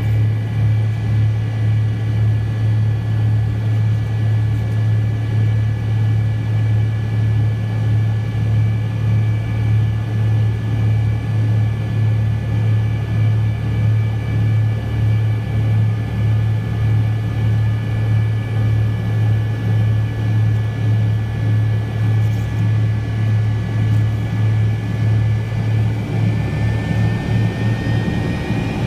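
MD-82's Pratt & Whitney JT8D jet engines heard from inside the cabin: a loud, steady low hum with a slow, regular swell and a few thin steady whine tones above it. Near the end the whine begins to rise in pitch.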